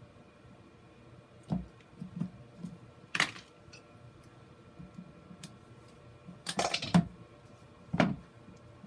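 Hard plastic knocks and clatters from handling: a plastic plant-mounting grid being shifted, turned and set down on a plastic bin lid, with a pair of metal pliers laid down. Single knocks come about a second and a half in and again near three seconds, a quick run of clatters around six and a half to seven seconds is the loudest, and one more knock follows at about eight seconds.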